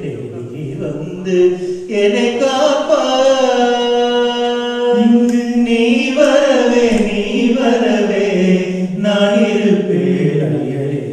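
Hindu devotional chanting sung in long held notes that slide between pitches, one note held for about three seconds.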